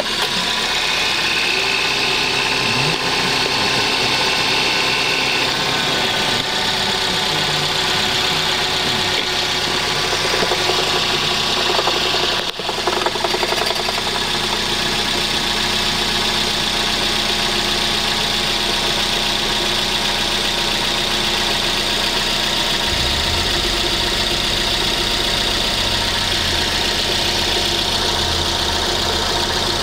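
Suzuki Swift engine idling under the open bonnet. A rapid 'kata-kata' rattle runs through it, mixed with a metallic scraping: a noise that appears suddenly a few minutes after a cold start as the engine warms, cause not yet found. A deeper low hum comes in about two-thirds of the way through.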